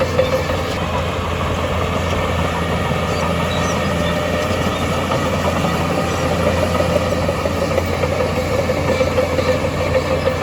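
Heavy diesel earthmoving machinery running steadily, a constant low engine hum.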